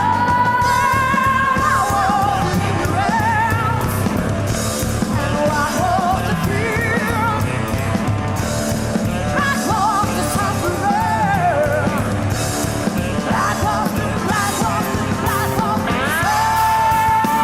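Rock band playing live: a steady, dense band sound with a wavering lead melody line bending in pitch, settling on a long held note near the end.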